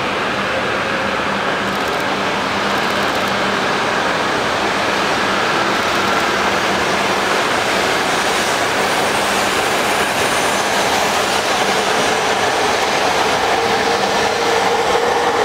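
E5 series Shinkansen train pulling out of the station and gathering speed, a steady rushing rumble of the passing cars that grows louder towards the end. A motor whine comes up in the second half, growing stronger and rising slightly in pitch as the train accelerates.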